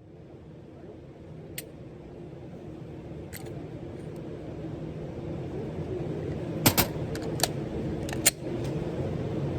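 A steady low mechanical hum that grows louder, with a few short, sharp metallic clicks: one or two early, then a quick pair about seven seconds in and a few more soon after.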